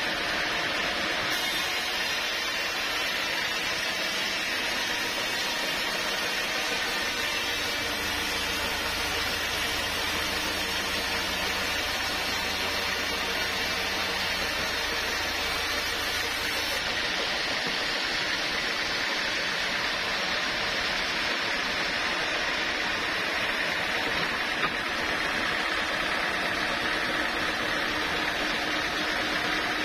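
Sawmill machinery running steadily, a continuous even noise. A low hum joins in about eight seconds in and stops about nine seconds later.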